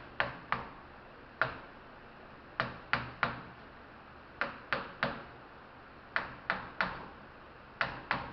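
Hammer tapping on a part inside a scrapped compressor, sharp knocks mostly in quick groups of three, each tap driving the part a little further down.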